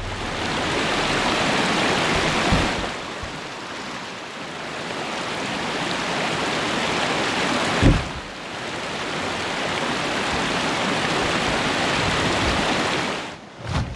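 A swollen creek rushing over a shallow riffle, a steady rush of water. A few dull thumps break through it, the loudest about halfway through.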